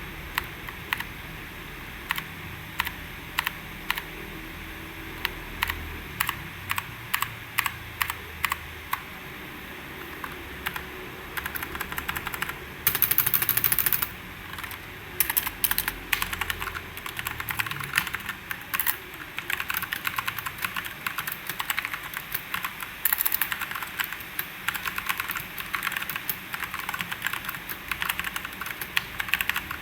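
Fantech MK871 mechanical keyboard with brown tactile switches being typed on. Single key presses come one or two a second at first; from about twelve seconds in, fast runs of typing take over, with two spells of very rapid clatter.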